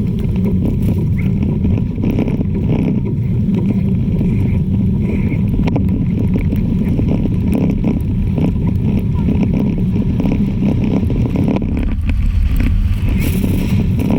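Plow truck's engine running with a steady, loud low rumble as the truck drives or plows snow.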